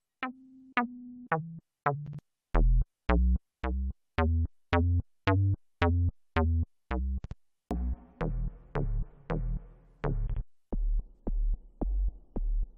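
Little-K software synthesizer playing bass presets: repeated single bass notes at about two a second, each starting with a sharp click. About halfway through, the sound changes to a fuzzier, noisier bass, and near the end to a low pulsing pattern as another preset is chosen.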